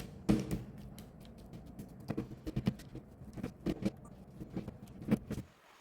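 Irregular light taps and clicks of a kitchen utensil against a baking tray as a wet chia-seed cracker mixture is spread, smoothed and scored, over a low hum that cuts off near the end.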